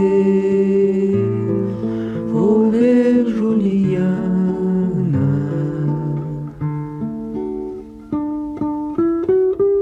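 Wordless humming of the song's melody over an acoustic guitar. About five seconds in the voices drop out and the guitar goes on alone with single plucked notes and short phrases.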